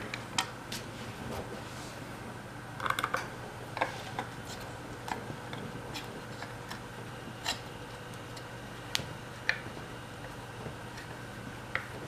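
Small screwdriver working screws out of a vacuum cleaner motor's diffuser plate: scattered light clicks and metallic ticks, with a quick cluster of them about three seconds in.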